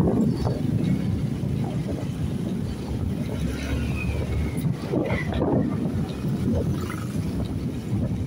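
Wind buffeting the microphone over the engine and road noise of a motorcycle moving at speed, a steady rumble.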